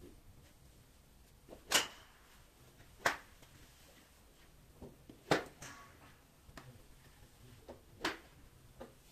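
Four short, sharp sounds of golf club swings, spaced unevenly a second or more apart, with a few fainter ones between.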